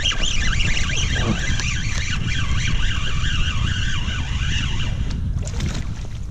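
Spinning reel cranked steadily while reeling in a hooked fish, its gears giving a warbling whine that rises and falls with the cranking and stops about five seconds in. Wind rumbles on the microphone underneath.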